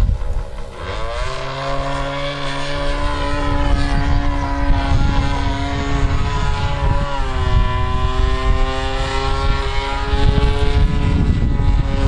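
SC 108 two-stroke glow engine of a Seagull Harrier model aircraft in flight, turning a 14x8 propeller: a steady buzzing drone. Its pitch climbs about a second in, then dips briefly and climbs again about seven seconds in as the throttle changes.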